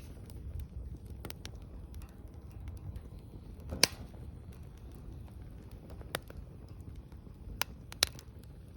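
Wood bonfire crackling: scattered sharp pops, about five of them, the loudest a little under four seconds in, over a low steady rumble.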